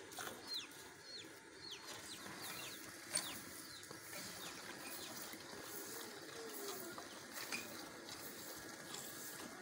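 A cow being milked by hand into a steel bucket, the milk squirting into the pail in short repeated strokes.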